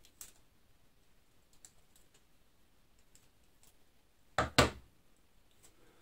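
Scissors and Kapton tape being handled: faint scattered clicks and snips, then about four and a half seconds in two sharp knocks close together, as the steel scissors are set down on the bench.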